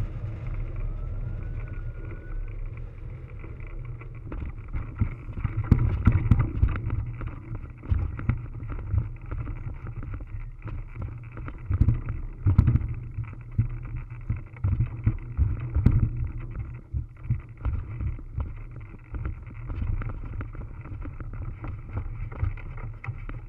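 Wind rumbling on a camera microphone mounted on a hang glider. From about six seconds in come irregular thumps and rattles as the pilot lands and runs, then walks, the glider out across the grass.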